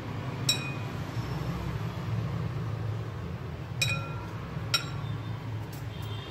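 A spoon clinking against a glass mixing bowl while stirring and scraping, the bowl ringing briefly after each strike. There are three clear clinks, one about half a second in and two close together around four to five seconds, with a fainter tap near the end, over a steady low hum.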